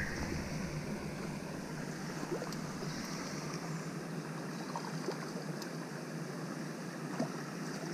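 Steady rushing of water flowing over a small weir on a stream, with a few faint light ticks.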